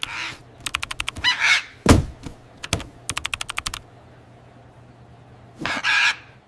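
Quick runs of computer-keyboard typing in two bursts, with one heavy thunk about two seconds in. Short raspy bird squawks sound near the start and again near the end.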